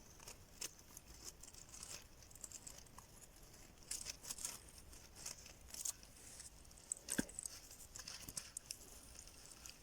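Faint, irregular scratching and light clicks of hands working on the parts of a dismantled refrigerator compressor motor, with one sharper tick about seven seconds in.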